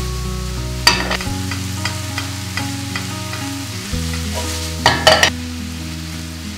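Ground beef sizzling in a nonstick frying pan as it is stirred with a spatula, with two louder bursts of scraping and clatter, about a second in and again around five seconds.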